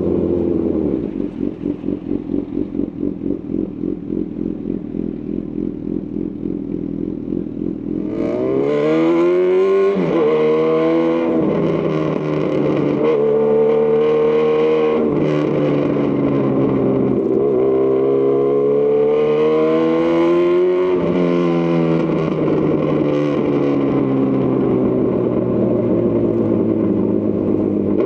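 2018 Honda CB1000R's inline-four engine through a Lextek CP1 full exhaust, running at low revs with a pulsing beat, then accelerating hard about eight seconds in. The pitch climbs and drops back at each upshift three or four times, then settles into a steady cruise.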